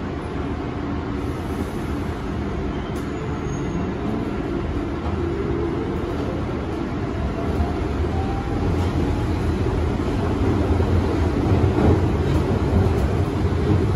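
Inside a London Underground Central line 1992 Stock carriage pulling out of a station: a steady low rumble and rattle of the car on the track, with a faint motor whine rising in pitch as the train picks up speed. The noise grows louder towards the end.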